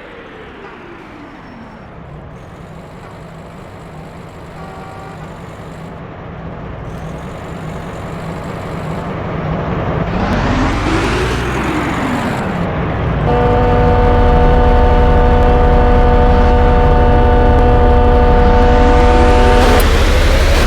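Motor vehicle engines running close by, their pitch falling and rising as they rev and pass, growing steadily louder. In the second half a loud steady chord of several tones is held for about six seconds over a heavy low rumble.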